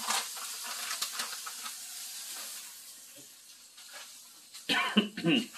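A steady hiss like steam or sizzling food, with a few light ticks, fading away over the first three seconds. A short, louder sound breaks in near the end.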